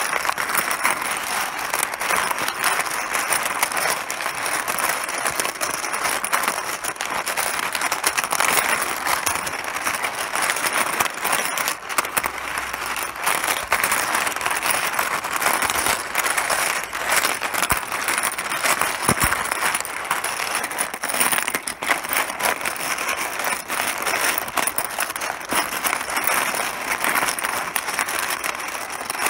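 Mahjong tiles clattering against each other in a dense, continuous stream of small hard clicks.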